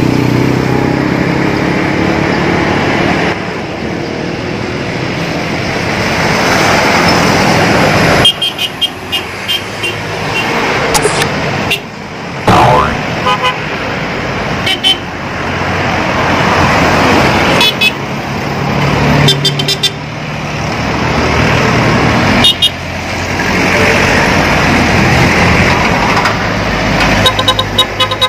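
A convoy of Isuzu Panther cars and SUVs driving past one after another, the traffic noise swelling and fading as each goes by. Horns give short toots several times.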